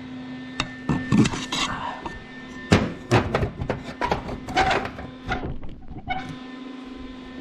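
Irregular clinks and knocks of metal parts being handled, heard over a steady faint hum.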